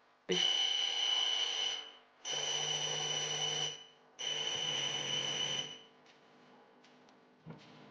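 Noblex DJ43X5100 LED TV's speakers putting out three bursts of harsh buzzing noise with a steady high whine, each about a second and a half long with short gaps between, as the set reboots. This is the sign of an open-circuit, burnt-out LED backlight strip. A short knock comes near the end.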